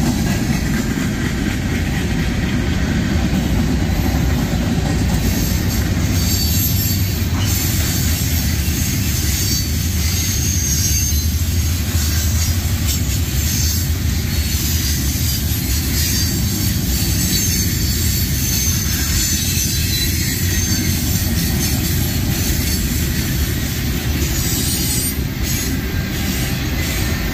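Freight cars of a CSX manifest train rolling past close by: a steady rumble of steel wheels on rail, with high-pitched wheel squeal rising out of it a few seconds in and again near the end.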